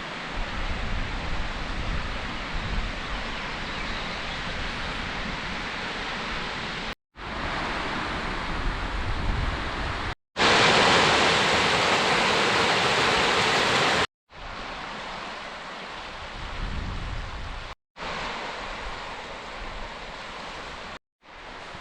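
Steady outdoor rushing noise with low rumble from wind on the microphone, in several short clips broken by abrupt cuts. The middle clip holds a louder, hissing rush.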